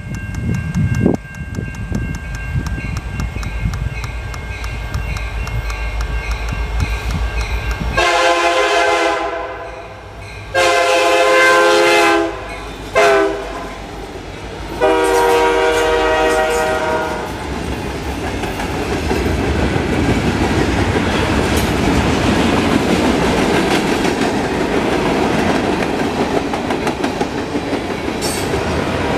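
Westbound CN freight train led by diesel-electric locomotives rumbling in, then the lead unit's air horn sounding two long blasts, a short one and a final long one (the grade-crossing signal) as the locomotives pass. Then the steady rolling noise of freight cars going by, with wheels clacking over the rail joints.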